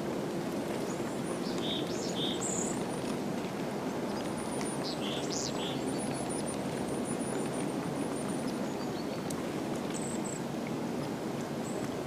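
Small songbirds giving short high chirps in a couple of clusters in the first half, with a thin, very high wavering call after the middle. These sit over a steady low background rumble of outdoor noise.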